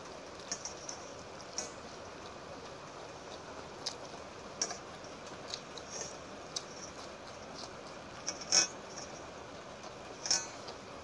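Close-up eating sounds: scattered wet mouth clicks and smacks from chewing, with fingers squishing in rice soaked in water. There are two louder wet smacks near the end.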